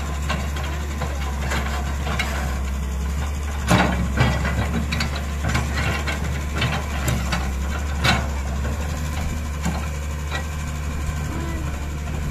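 Kobelco Yutani hydraulic excavator's diesel engine running steadily as the machine works its boom and bucket. Several sharp knocks and clanks stand out, the loudest about four and eight seconds in.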